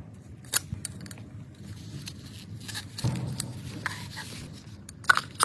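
Hand tools clicking and scraping against metal in a few sharp clicks, with a short scrape about three seconds in.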